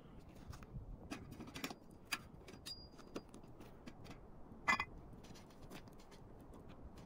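Scattered light clicks and ticks, with one louder, slightly ringing click about two-thirds of the way through.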